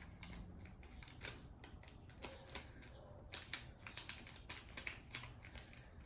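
Origami paper crinkling and crackling as it is folded and creased by hand: a faint, irregular run of crisp little clicks, thickest in the middle.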